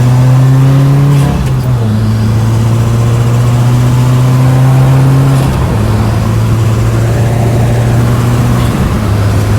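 2016 Subaru WRX's turbocharged flat-four accelerating hard under load, its note climbing slowly through each gear and dropping at three gear changes: about a second in, past halfway, and near the end.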